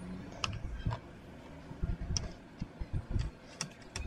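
Small plastic kit pieces being handled and fitted together, clicking against each other and tapping on the desk: scattered light clicks with a few dull knocks.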